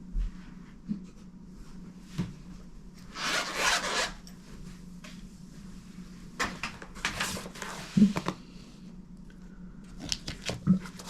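Rummaging through a jewelry-making kit for a pair of pliers: several spells of rustling and scraping, with light clicks and knocks as things are moved about.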